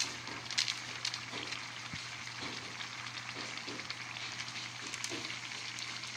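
Soup boiling hard in a metal pan: a steady bubbling hiss, with a few light ticks in the first second or so.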